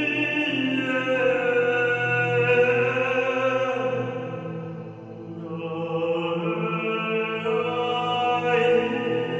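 Slow music of long held notes in a chant-like style, with the pitch shifting every few seconds; it dips in loudness about halfway through and swells back.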